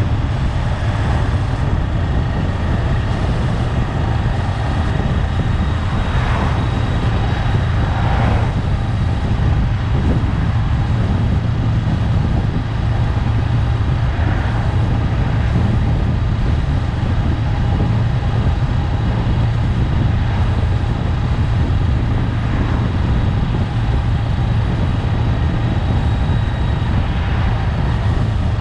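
Honda 400X's parallel-twin engine running at a steady cruise, mixed with steady wind and road noise. There are a couple of brief swells in the noise about a quarter of the way in.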